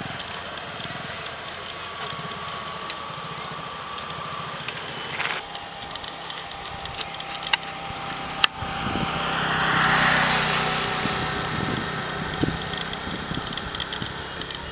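Road traffic: engines running steadily, and one vehicle passing that swells to its loudest about ten seconds in and then fades. A single sharp click comes just before the swell.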